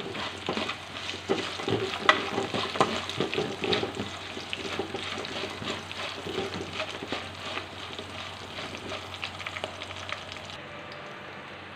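Green chillies, cashews and black peppercorns sizzling in hot ghee in a metal kadai, with a spoon stirring and scraping against the pan. The scraping clicks are frequent in the first half and thin out toward the end.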